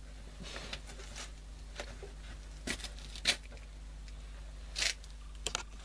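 A person moving and handling things close to the microphone: a few soft rustles and clicks, spaced irregularly, over a steady low electrical hum.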